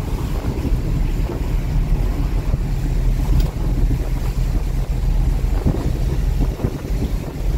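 Tow truck driving on a rain-soaked road: a steady low engine and road rumble, with a few light knocks in the last third.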